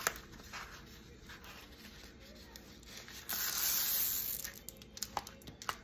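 Diamond-painting canvas under its clear plastic film being handled and shifted on a table: soft rubbing, then a brief loud crinkling rustle about three seconds in, and a few light clicks near the end.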